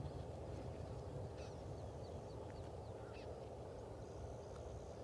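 Small birds calling in many short, quick chirps over a steady low background rumble.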